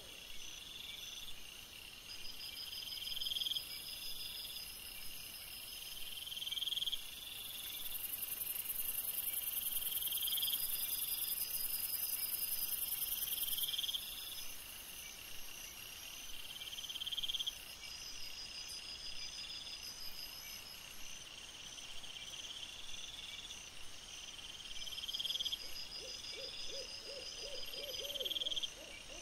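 Crickets chirping in a steady repeating pattern: a rising chirp about every second and a half, over a fainter continuous higher trill. A faint, lower pulsing call comes in near the end.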